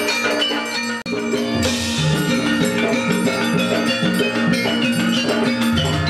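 Javanese gamelan ensemble playing dance music: metallophones ring in a repeating melodic pattern over kendang drum strokes. The sound cuts out for an instant about a second in.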